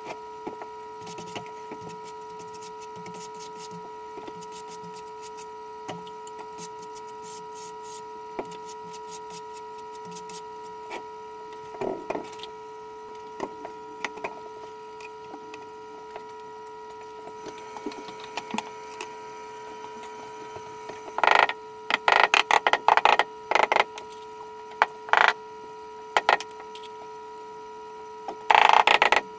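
Steady electric hum of a Grabo battery-powered vacuum tile lifter holding a large porcelain tile, with scattered light clicks. Loud bursts of sharp clattering come about two-thirds of the way in and again near the end.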